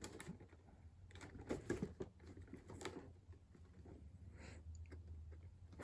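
Faint handling of a box and its packaging: scattered light taps, clicks and short rustles, over a low steady hum.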